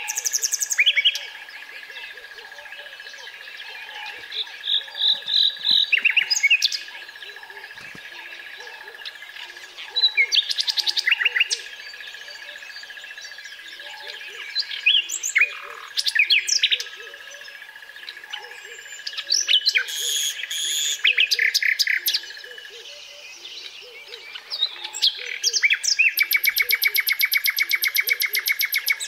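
Common nightingale singing in separate phrases every few seconds, mixing whistles and trills, with a fast run of repeated notes near the end. A steady thin high tone runs beneath the song.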